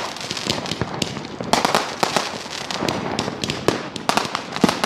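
Many fireworks and firecrackers going off at once: a dense, unbroken run of overlapping sharp cracks and bangs, several a second.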